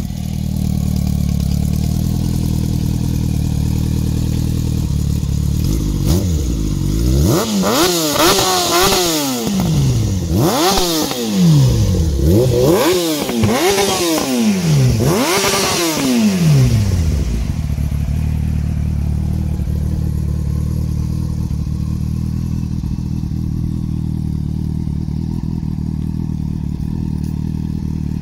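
Yamaha R1 inline-four motorcycle engine in a buggy, idling steadily, then revved in about five quick throttle blips that rise and fall in pitch, before settling back to a steady idle.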